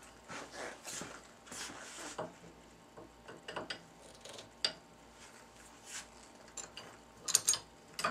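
Hydraulic bottle jack being hand-pumped with its steel lever handle, giving irregular metallic clicks and clanks, louder near the end. The jack is taking up the slack in the loading rig at low pressure.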